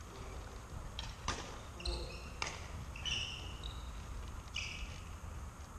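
Badminton play on a wooden sports-hall floor: two sharp racket hits on the shuttlecock about a second apart, and several short high squeaks of court shoes on the floor.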